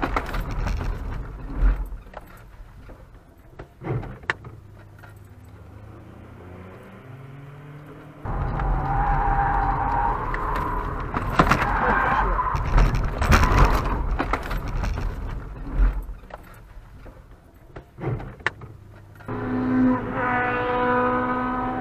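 Opel Astra 1.4's four-cylinder petrol engine heard from inside the cabin under hard driving on a race track, rising in pitch as it revs, over road and tyre noise and cabin rattles. The sound changes abruptly twice, about 8 and 19 seconds in, getting louder at the first change and settling into a steady engine note at the second.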